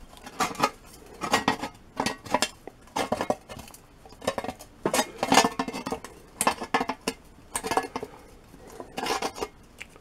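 Steel pliers clinking and scraping on the thin sheet-steel edge of a small shovel blade as the worn, bent-over edge is bent back straight. The sound comes as irregular clusters of sharp metallic clicks.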